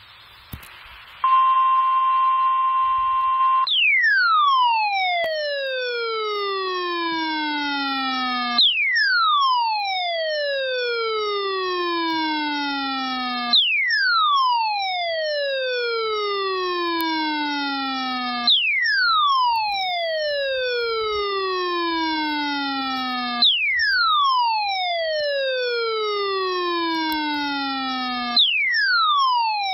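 Emergency alert audio: a moment of static, then a steady electronic alert tone held for about two and a half seconds, followed by a falling siren-like sweep that starts high, glides down and restarts about every five seconds, with a short louder blip at each restart.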